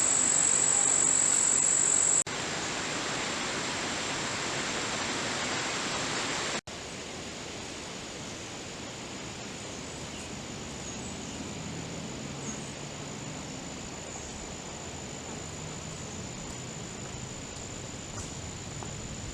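Insects trilling in one steady, unbroken high tone over an even outdoor hiss. The whole sound drops sharply in level about two seconds in and again about six seconds in.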